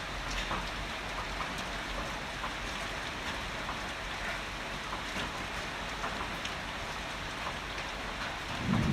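Heavy rain falling steadily, with individual drops ticking through the hiss. Near the end a low rumble of thunder begins to swell.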